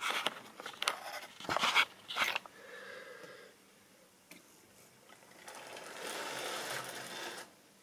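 Handling noise as the camera is carried and set down on the model railway layout: a run of knocks and scrapes over the first couple of seconds. Near the end comes a steady rushing noise lasting about two seconds that stops abruptly.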